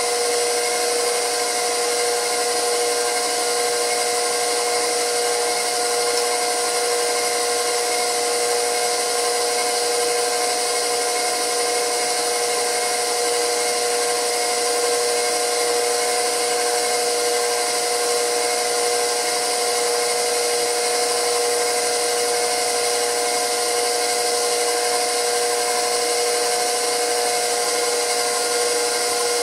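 Electric stand mixer running steadily with a constant motor whine, beating butter for frosting as sugar is added a spoonful at a time.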